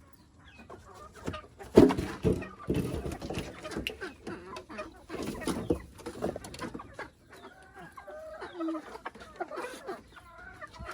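Chickens clucking, with loud knocks and rustling about two to six seconds in, the loudest near the start of them; the clucking calls come through more clearly towards the end.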